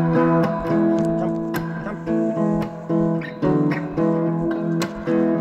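Acoustic guitar music: strummed chords played at a steady beat.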